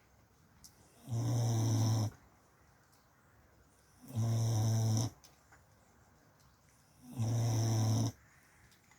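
Snoring in slow, even breaths: three long, low-pitched snores about three seconds apart, each lasting about a second, with quiet in between.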